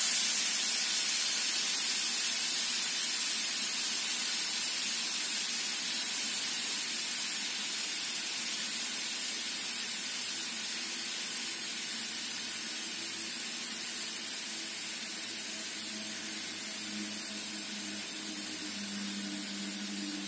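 Homogenizer for gas-cylinder bundles running: a steady hiss starts suddenly and slowly fades. A faint low hum joins it in the second half as the frame tilts the bundle.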